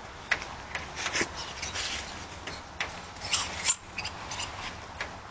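A dog scuffling in grass as it noses and paws at a tennis ball. The sound is irregular rustling with small clicks and scrapes.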